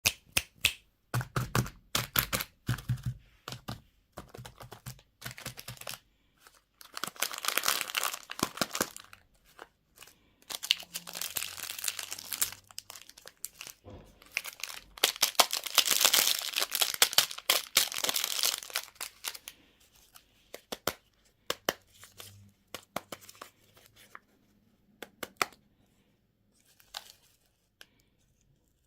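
Candy and surprise-toy wrappers being unwrapped by hand: a quick run of sharp clicks and taps, then long stretches of crinkling and tearing packaging, tapering off to scattered clicks near the end.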